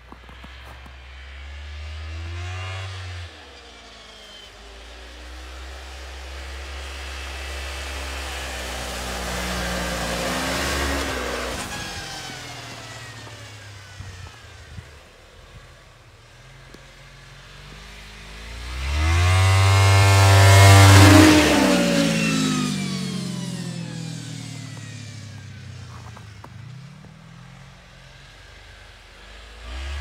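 Snowmobile engine running as it drives past three times, each pass swelling and then falling in pitch as it goes by. The loudest and closest pass comes about two-thirds of the way through, then fades into the distance.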